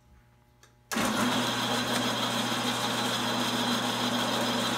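Small benchtop bandsaw switched on about a second in, its motor and blade then running steadily with a low hum.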